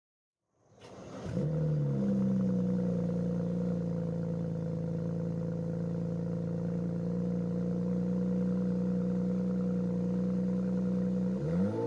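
BMW N54 straight-six engine starting: it catches with a sharp click about a second in, rises in pitch, then runs at a steady idle. Its pitch briefly dips and rises near the end.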